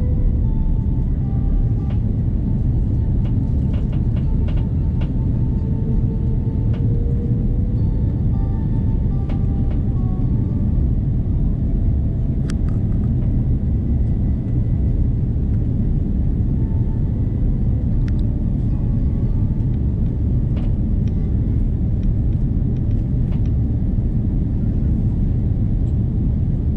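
Airbus A330 cabin noise in flight: a steady low rumble of engines and airflow, with a few faint clicks in the cabin.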